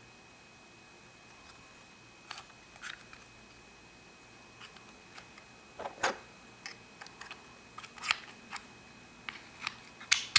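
Hard plastic Minnie Mouse Pocket Lock-It toy house clicking and tapping as it is handled and its hinged case is worked, irregular sharp clicks starting about two seconds in. A faint steady high whine sits underneath.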